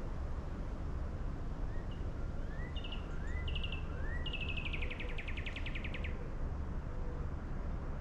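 A songbird sings a few short rising notes, then a fast trill of about ten notes a second that stops a couple of seconds before the end. A steady low rumble, the loudest thing throughout, lies underneath.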